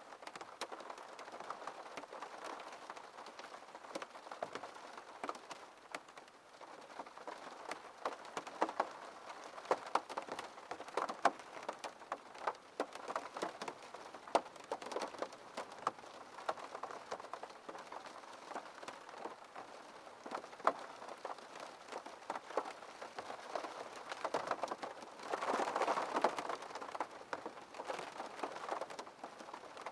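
Rain on a window pane: a steady wash of rain with many separate sharp drop hits on the glass, growing heavier and louder for a couple of seconds near the end.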